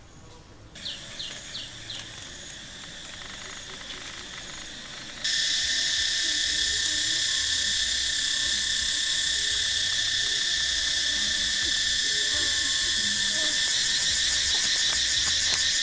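Dense, steady chorus of insects, high-pitched. It starts fainter with a few short chirps, then jumps suddenly louder about five seconds in, and a fast pulsing trill joins at the very top near the end.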